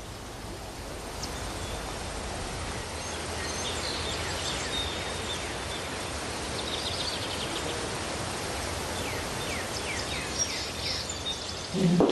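Outdoor ambience in an open courtyard: a steady background hiss with small birds chirping in short, quick, falling calls, in clusters through the middle. A low thud comes right at the end.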